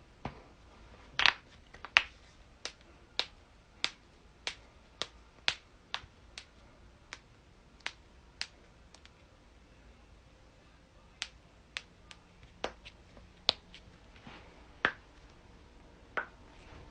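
Joints cracking: a long run of sharp single pops, about two a second, then after a pause of about two seconds a few more scattered pops.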